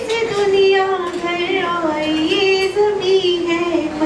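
A woman singing a slow melody solo into a handheld microphone, holding long notes that slide gently between pitches.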